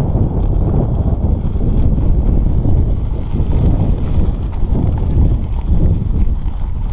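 Heavy wind rumble on the microphone of a handlebar-mounted camera while the mountain bike rides along a dirt track.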